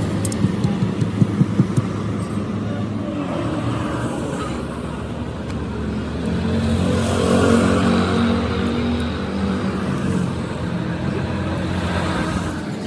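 An engine running steadily, swelling louder for a few seconds in the middle. Several sharp knocks sound in quick succession during the first two seconds.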